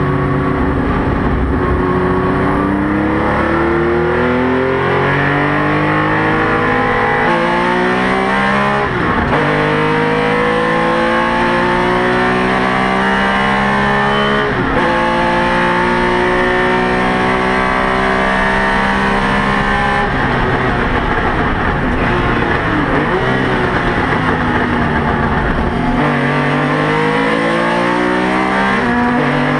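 Porsche 911 RSR flat-six racing engine heard from inside the cabin at full throttle, its pitch climbing through each gear and dropping sharply at each shift, several times over. The driver says the engine was not running at 100%.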